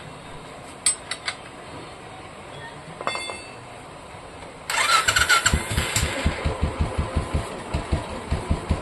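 Royal Enfield single-cylinder engine being turned over on its electric starter, its starter one-way clutch newly replaced. A few light clicks come about a second in. Over halfway through, the starter suddenly kicks in, cranking with a whine and steady chugging pulses, and the engine doesn't catch.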